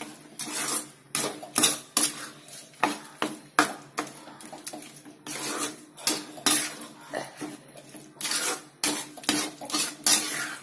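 Spatula stirring a thick mango mixture in a metal kadai, scraping and knocking against the pan in irregular strokes about twice a second.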